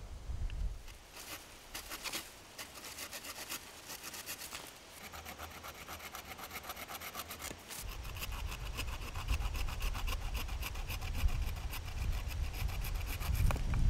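Improvised handsaw, a saw blade lashed with cord into a carved stick handle, cutting through a thin branch. It starts with short, separate strokes, then settles into quick, even back-and-forth strokes from about five seconds in.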